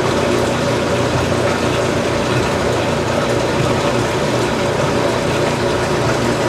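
1992 top-loading washing machine draining: its motor and drain pump run with a steady hum over the rushing noise of water being pumped out.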